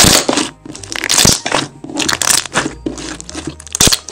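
Thick white milky slime squeezed and kneaded by hand, giving a dense run of loud, irregular crackles and pops, the loudest right at the start and near the end.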